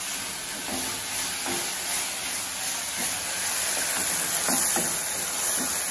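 Chopped coriander leaves, small onions and tomatoes sizzling in oil in a nonstick pan as they are sautéed. A wooden spatula stirs through them with soft, irregular scrapes.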